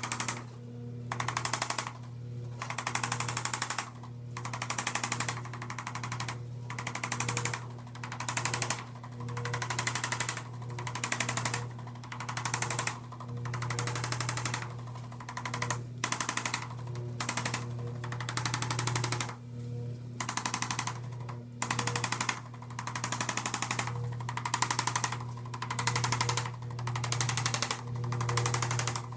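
Electric percussion massager working the muscles of the lower back: a steady motor hum with rapid hammering that swells in passes of about a second, repeating every second or two.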